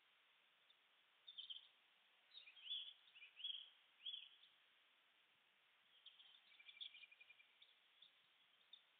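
Faint small-bird chirps over a steady low hiss: a handful of short arched notes in the first half, then scattered chirps and a brief rapid trill in the second half.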